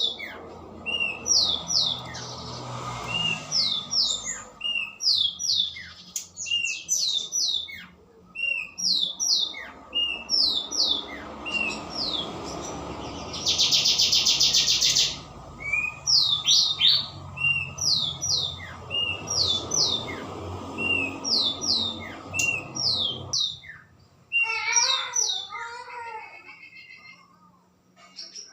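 Several songbirds calling over one another: sharp high chirps repeated again and again, with a loud buzzing rattle lasting about a second and a half around the middle. Near the end the background hiss cuts off abruptly and different wavering, lower calls take over.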